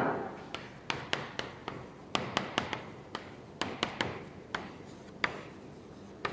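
Chalk tapping against a blackboard while writing, a quick, uneven run of sharp taps.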